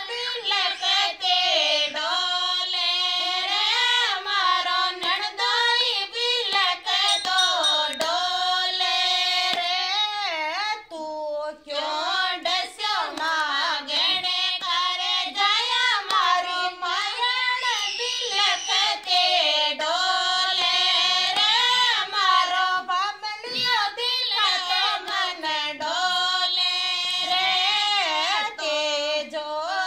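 Group of women singing a Rajasthani folk song to Tejaji together, unaccompanied, with hand claps keeping time. The singing breaks briefly about eleven seconds in.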